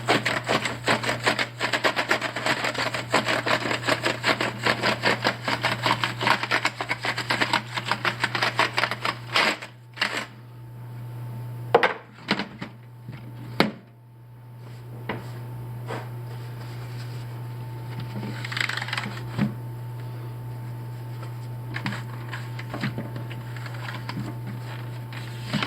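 Paintbrush wet with rubbing alcohol scrubbed briskly across a computer keyboard's keys: fast scratchy brushing with the keycaps clattering for about the first ten seconds, then only occasional strokes and taps. A steady low hum runs underneath.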